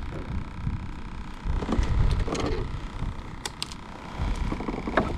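Wind buffeting the microphone, with a few sharp clicks and rattles from fishing tools and the landing net being handled.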